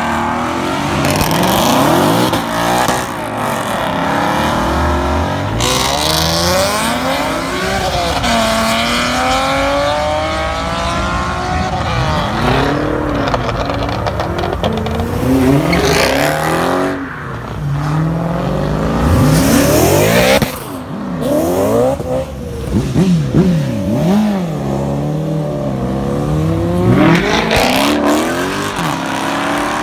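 Several performance cars accelerate away one after another, their engines revving hard, the pitch climbing and dropping again and again through gear changes and throttle blips. Tyres squeal during burnouts at several points.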